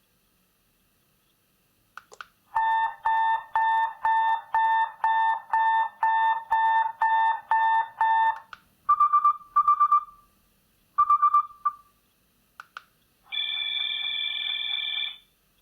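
CAT B26 mobile phone's loudspeaker playing its built-in ring and alert tones. A beeping tone repeats about twice a second for about six seconds, then come two short groups of higher beeps, then a steady buzzing tone near the end, with a few short clicks between the tones.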